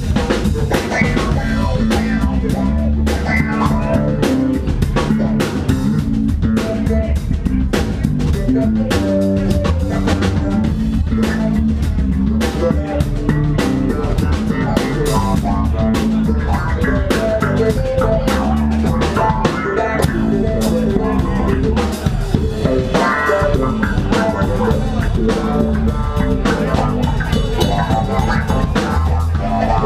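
Live instrumental rock played by a band: a drum kit keeping a steady beat under an electric bass, with no vocals.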